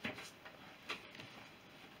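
Two light knocks about a second apart, with faint rustling between them: workshop handling sounds.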